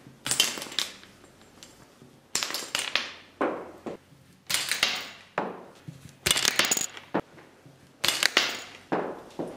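Plastic Subbuteo table-football figures being flicked against the ball: a series of about seven sharp, clattering knocks, each with a short metallic-sounding ring that fades quickly.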